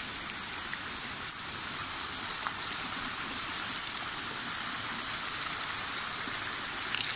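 Rainwater runoff rushing and splashing down a steep, stony footpath in a steady torrent. The footpath has turned into a temporary stream under heavy rain.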